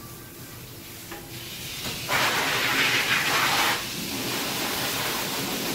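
Hose spray from a self-serve dog-wash station hissing as the soapy dog is rinsed. It starts softly, turns loud for about a second and a half about two seconds in, then goes on steadier and quieter.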